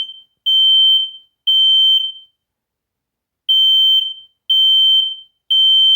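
Smoke alarm sounding its test in the temporal-three evacuation pattern: loud, high-pitched beeps of about half a second, in groups of three with a pause of about a second and a half between groups.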